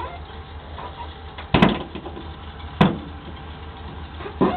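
Dodge Ram van's 318 V8 idling steadily, with sharp knocks about one and a half seconds in, again near three seconds, and once more near the end.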